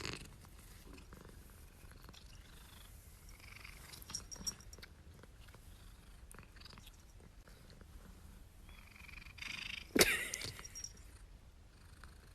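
Domestic cat purring, a low steady rumble, with a few faint clicks and one sharp knock late on.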